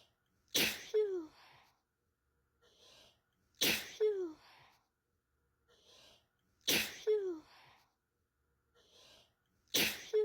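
A person sneezing, the same short clip looped so that it comes four times, about every three seconds. Each time a faint intake of breath is followed by a sudden loud sneeze with two quick peaks, ending in a short falling vocal "choo".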